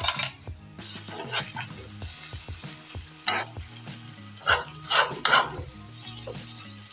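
Scrambled egg with diced mortadella and cheese sizzling in hot oil in a frying pan, a metal spoon scraping and stirring it against the pan several times. A brief metal clatter at the very start, before the sizzling sets in about a second in.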